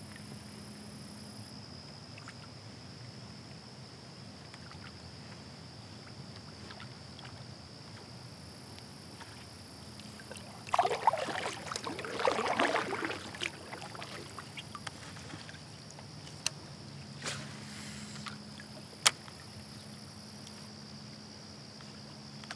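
Kayak on calm water: a faint steady outdoor background, broken about halfway through by a couple of seconds of paddle splashing and water dripping. A few sharp single clicks follow.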